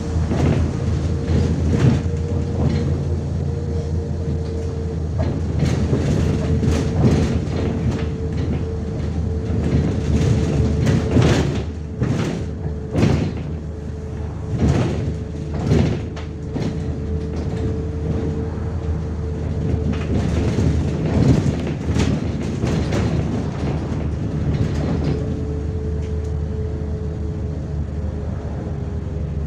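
Inside a MAZ-105 articulated city bus under way: steady engine drone and road rumble with a constant whine, broken by clusters of sharp knocks and rattles from the bus body, busiest in the middle of the stretch.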